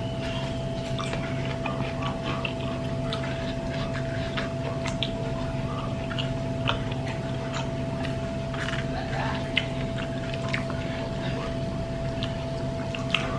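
Eating sounds: scattered sharp clicks of cutlery or dishes and chewing, over a steady electrical hum.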